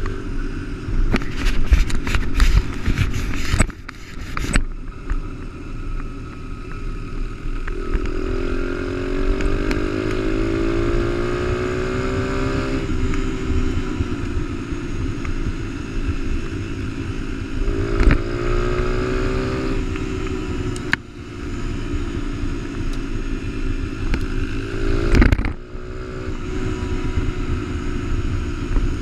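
Honda XR100 mini dirt bike's small single-cylinder four-stroke engine running at speed, climbing in pitch twice as it accelerates, with rattling and scraping from the gravel surface and a couple of sharp knocks over bumps.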